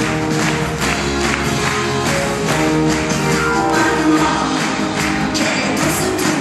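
A live pop band playing a song with a steady beat, with guitar and drums.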